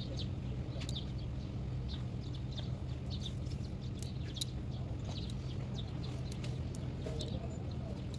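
Small birds chirping in many short calls over a steady low hum.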